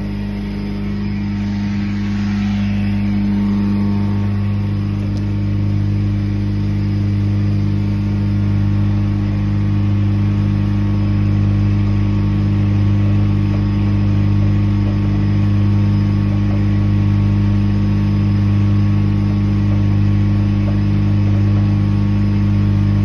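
Ditch Witch FX60 vacuum excavator's engine running steadily with an even, deep hum.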